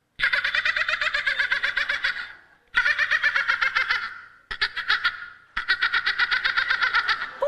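A woman imitating a dolphin with her voice: four bouts of high-pitched, rapid squeaky chattering with short breaks between them.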